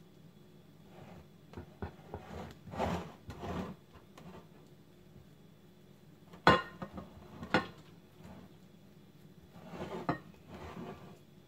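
A spatula scraping and pressing semolina dough into a glass baking dish. Past the middle come two sharp knocks about a second apart, the loudest sounds, as the spatula knocks against the glass dish.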